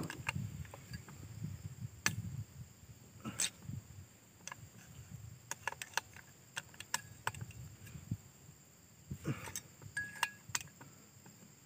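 Scattered light clicks and taps of a Motoyama replacement cylinder being handled and seated by hand onto a Singso 6200 chainsaw's crankcase, with a soft low rumble of handling.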